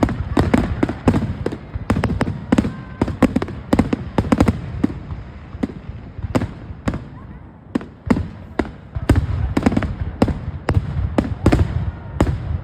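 Fireworks display: a rapid, irregular string of bangs and crackles over a low rumble. It thins out briefly about halfway through, then picks up again.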